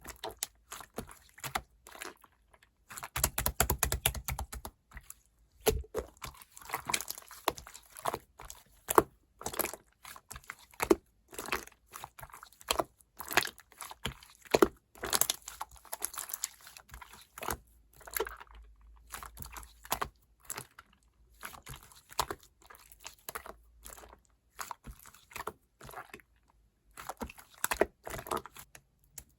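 Clear slime being squished, pressed and stretched by hand, giving an irregular run of sticky clicks and crackling pops, thickest a few seconds in and again near the end.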